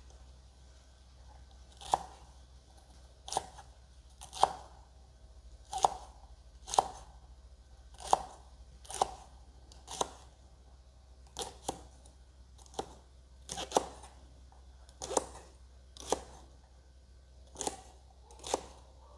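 Kitchen knife chopping yardlong beans on a wooden chopping board: sharp knocks of the blade through the crisp beans onto the wood, about one a second, starting about two seconds in.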